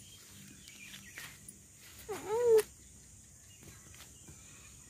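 A single short animal call, rising and then falling in pitch, about two seconds in, over a faint outdoor background.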